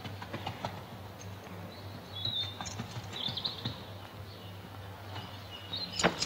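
Birds chirping in short bursts over the faint clop of a horse's hooves and a low steady hum. A single sharp knock near the end is the loudest sound.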